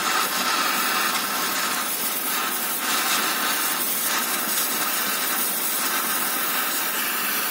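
Gas welding torch flame hissing steadily as it welds a vehicle's exhaust silencer (muffler) with a filler rod.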